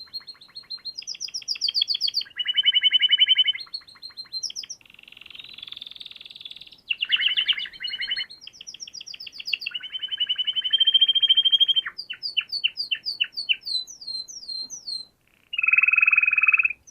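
A songbird singing a long, varied song: rapid trills, buzzy rattling phrases and runs of quick down-slurred whistles, each phrase giving way to a new one every second or two, with a brief pause near the end.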